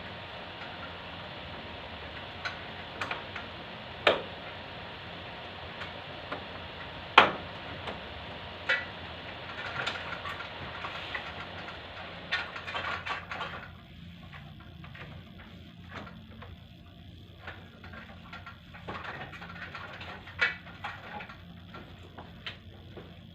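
Steady machine hum and hiss with scattered sharp clicks and knocks. Much of the hiss drops away about 14 seconds in.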